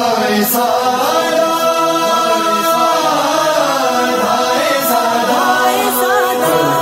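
Devotional vocal chanting of a noha, an Urdu lament for Husain and Karbala: melodic voices over a steady held drone.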